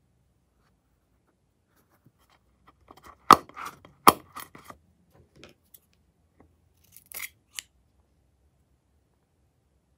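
Handling of a slime-filled latex balloon and a pair of scissors: two sharp clicks about three and four seconds in with scattered small ticks around them, then a couple of scissor snips cutting the balloon's neck about seven seconds in.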